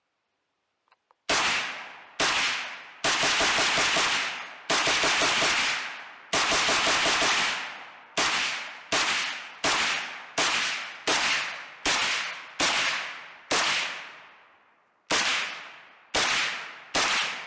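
Rapid rifle fire from a custom AK-47 rifle. After about a second of quiet it opens with fast strings of shots and slows to single shots well under a second apart, each ringing out after the crack. It pauses briefly near the end, then three more shots follow.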